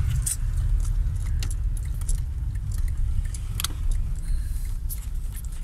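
A car's engine running, a steady low rumble heard from inside the cabin, with scattered light clicks and jingles of small loose objects.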